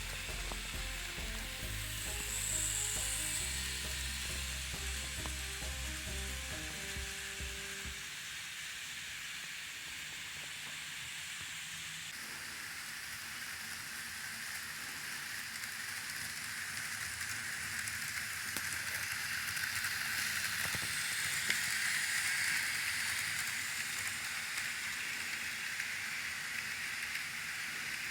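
Background music for the first several seconds, then the steady hissing rattle of an N gauge model train running on layout track, growing louder about two-thirds of the way through as it comes closer.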